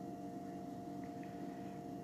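Steady low background hum with a thin constant tone above it: room tone, with no distinct event.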